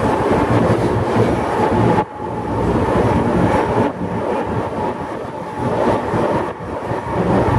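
Rigi rack-railway train running, a loud rattling rumble of wheels and running gear with a steady whine on top. The level drops sharply for a moment about two seconds in, then builds again.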